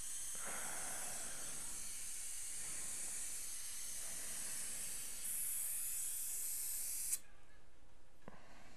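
Steady high-pitched hiss of dental equipment working in the patient's mouth. It grows louder about five seconds in and cuts off suddenly about two seconds before the end.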